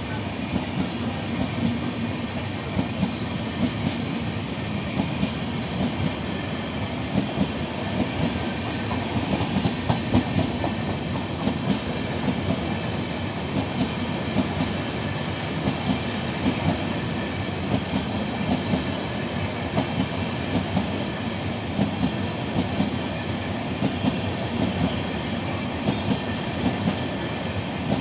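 A train of LHB passenger coaches running past, its wheels clattering over the rail joints in a steady stream of clicks over a continuous rolling rumble.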